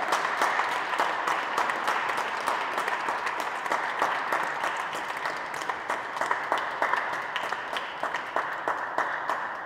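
Audience applauding, a dense patter of hand claps that gradually dies down toward the end.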